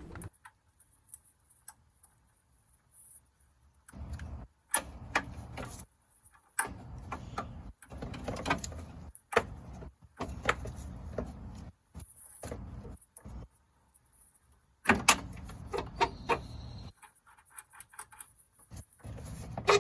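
Scattered metal clinks, knocks and rattles of hand work on car suspension, with quiet pauses between: a new upper control arm's bolts and ball-joint nut being fitted.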